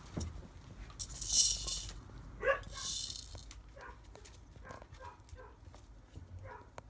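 Rough collie puppies, about five and a half weeks old, yipping in short, high-pitched barks repeated every half second to a second. Two brief, louder hissing rustles come about a second in and again near three seconds.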